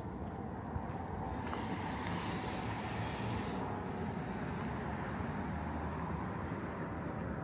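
Road traffic: a steady low rumble of vehicles, with one passing close by about two seconds in.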